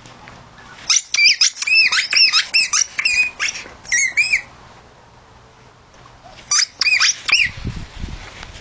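Yellow spiky rubber squeaky ball squeaking as a puppy bites and chews it: a quick run of high squeaks, then a second, shorter run.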